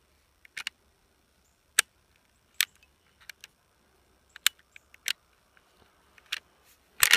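Sharp metallic clicks and snaps, about eight spread irregularly with a quick cluster near the end: a Browning BLR lever-action rifle's action being worked by hand as the lever and trigger group are taken out.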